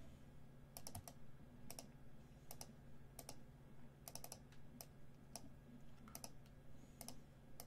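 Faint clicking of a computer keyboard: scattered keystrokes, some in quick groups of two or three, over a steady low hum.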